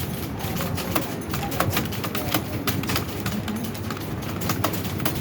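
Computer keyboard being typed on fast during a timed typing test: a quick, irregular run of key clicks, several a second, over a steady low background noise.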